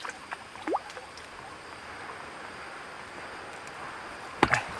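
Light clicks and rustles of a gill net being hauled in by hand through brush at the water's edge, over a faint steady background hiss. A short rising chirp comes about three-quarters of a second in, and a louder burst of clicks and rustling comes near the end.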